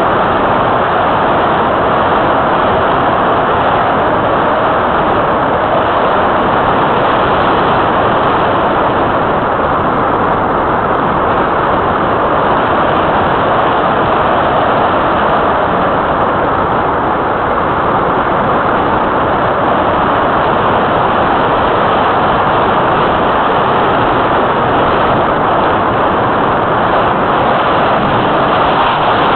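Steady rush of air buffeting a small keychain camera mounted on the wing of an Easy Glider Pro RC glider in flight, an even noise that holds at one level throughout.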